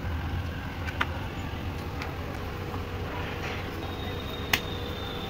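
Hands handling dough in a steel bowl, with two short sharp clicks, a small one about a second in and a louder one near the end, over a steady low hum.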